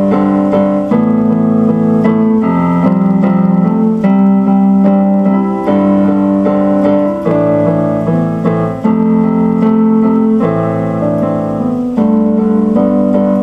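Instrumental music played on a keyboard with a piano sound: held chords in the low and middle range that change every second or two, with melody notes struck above them.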